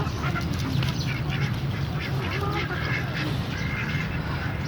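A flock of domestic fowl calling, many short overlapping calls over a steady low background hum.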